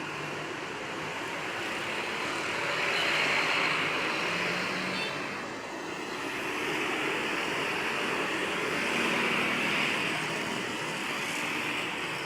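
Road traffic passing close by: engine and tyre noise swelling as vehicles go past, loudest about three seconds in and again around nine seconds in.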